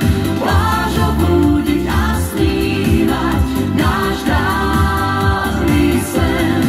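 A woman and a man singing a pop duet live into microphones over amplified accompaniment with a steady beat.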